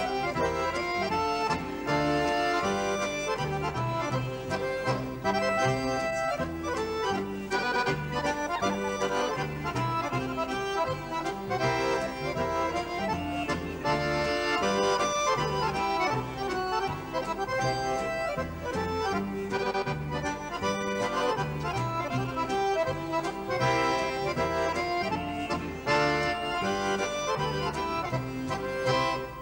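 An accordion quartet (two accordions with guitar and double bass) playing a lively Swedish schottische, the accordions carrying the melody over a steady pulsing bass.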